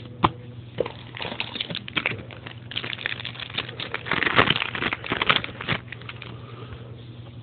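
Trading-card pack wrapper and cards being handled: quick, irregular crinkling and rustling, busiest about four to five seconds in.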